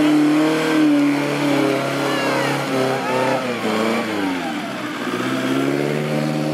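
1929 Riley 9 Tourer's four-cylinder engine pulling hard through mud, its revs wavering, dropping about four and a half seconds in, then climbing again.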